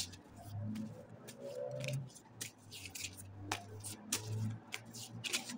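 Tarot cards being handled and shuffled: a run of short, crisp, irregular clicks and snaps, over a low steady hum.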